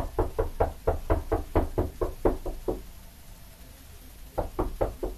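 Rapid, even knocking, about five knocks a second. It stops a little under three seconds in and starts again about a second and a half later.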